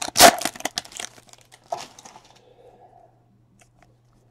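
Clear plastic wrapper of a trading-card pack crinkling as it is torn open and pulled off the cards. It is loudest in the first second, with another crackle a little later, then dies down to a few light ticks.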